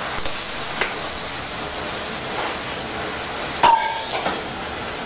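Poultry stock poured into a hot copper pot of sautéed artichoke leaves and onions, a steady sizzling hiss as it is stirred with a wooden spoon. A sharp metallic clank with a brief ring about three and a half seconds in.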